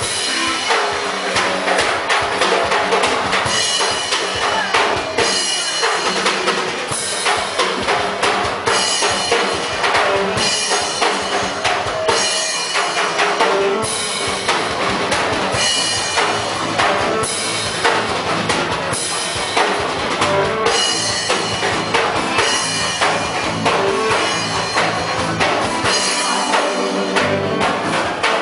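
Live rock band playing at full volume, with a driving drum kit (kick, snare and cymbal hits) over bass, guitar and keyboards.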